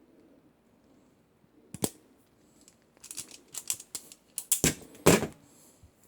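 Irwin Vise-Grip wire stripper cutting speaker wire: a sharp click about two seconds in, a run of clicks, then two loud snaps of the cutter jaws closing through the wire near the end.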